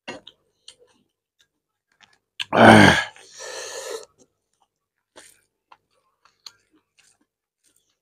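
A loud burp about two and a half seconds in, half a second long and falling in pitch, followed by a softer rough sound. Around it are soft, scattered wet mouth clicks and smacks from eating rice and curry by hand.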